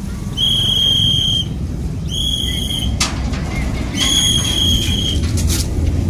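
Loaded ballast hopper wagons rolling slowly past with a low rumble, their steel wheels giving a high, steady squeal three times, each about a second long. A couple of sharp metallic clicks come in between.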